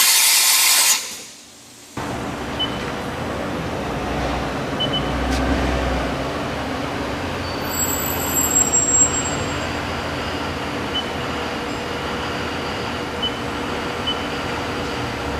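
Mori Seiki MV-Junior vertical machining center: a loud hiss of air or spray for about a second that cuts off, then from about two seconds in a steady mechanical running hum with a held tone.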